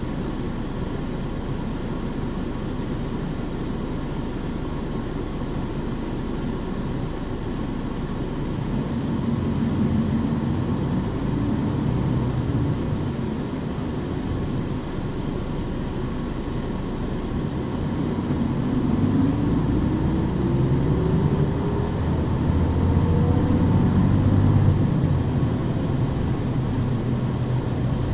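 On-board running sound of a Nissan Diesel KC-UA460HSN city bus: the diesel engine and drivetrain run steadily at first, then rise in pitch as the bus pulls away and accelerates twice, loudest near the end.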